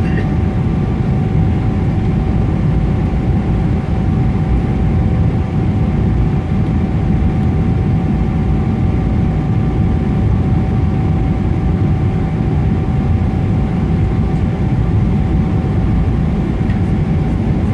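Steady cabin roar inside a Boeing 777-300ER on approach with its landing gear down, a mix of engine and airflow noise with a faint steady hum in it.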